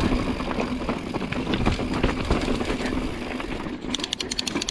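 Mountain bike riding over rough trail: tyre and rumble noise with the bike's frame and parts rattling over the ground. A rapid run of sharp ticks comes near the end.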